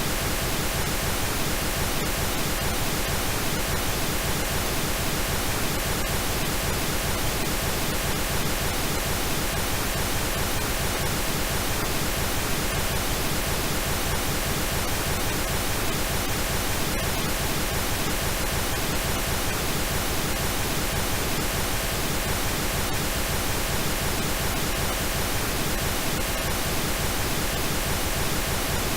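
Steady synthetic pink noise: an even, unchanging hiss spread across the whole range.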